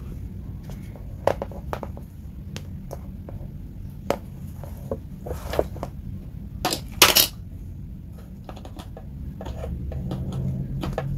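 Handling clicks and knocks as a soldering iron's power plug and cord are handled and the plug is pushed into a wall socket. The clicks are scattered, and the loudest is a close pair of knocks about seven seconds in. A low steady hum runs underneath.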